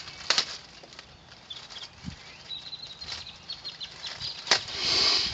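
Handling of speaker parts: a few sharp clicks and knocks with faint ticking in between. Near the end comes a louder, hissy rustle lasting about half a second.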